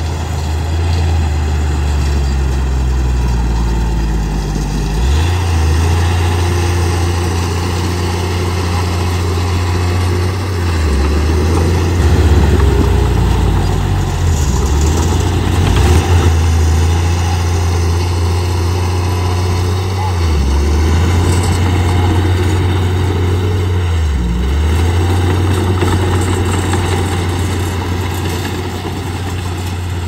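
Bulldozer's diesel engine running steadily under load while pushing sand. Its pitch dips briefly about five times, then recovers.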